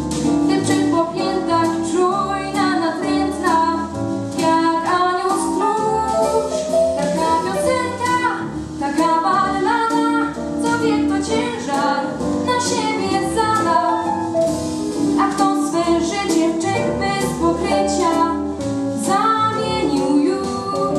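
A girl's solo voice singing a Polish ballad into a microphone, with instrumental accompaniment.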